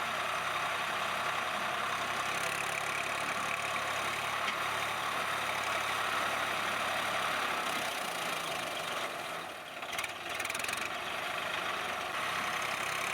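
Swaraj 960 FE tractor's diesel engine running steadily, with a brief dip in loudness about two-thirds of the way through.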